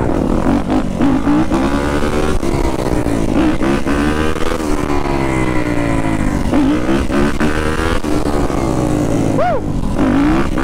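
Yamaha YZ250F four-stroke single-cylinder dirt bike engine running under way, its pitch rising and falling over and over as the throttle is worked, with a brief higher rev near the end.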